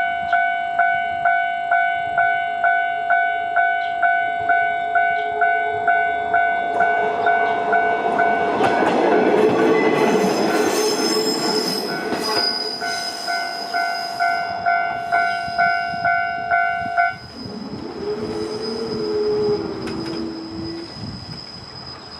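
Japanese level-crossing warning bell dinging in a steady rhythm, about three dings every two seconds, while a diesel railcar passes through the crossing with a rumble that builds and fades around the middle. The bell cuts off suddenly about three-quarters of the way through, and a brief wavering tone follows as the train sound dies away.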